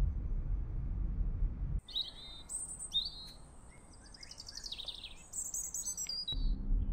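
Low rumble of a car's engine and road noise heard inside the cabin, which cuts off abruptly about two seconds in. Then several wild birds chirp and sing in short, high calls for about four seconds, and the car rumble comes back near the end.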